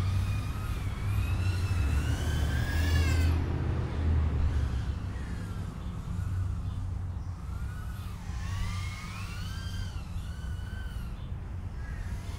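BetaFPV Meteor75 brushless whoop's motors and props whining, the pitch sliding up and down as the throttle changes, over a low rumble. Louder for the first few seconds, then softer.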